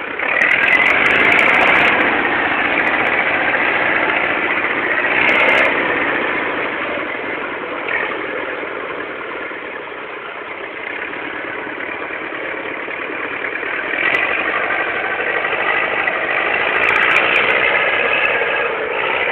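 Tractor engine running as the tractor is driven over grass and up a steep slope, its note swelling and easing with the load: louder at first, quieter around the middle, then louder again on the climb.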